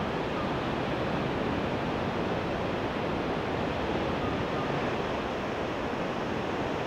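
Steady rushing of wind and sea surf, even in level throughout, with no separate breaks or knocks standing out.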